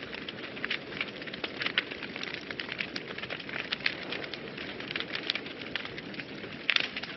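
Wood fire in a fireplace burning, with a steady hiss and frequent sharp crackles and pops, a few louder pops near the end.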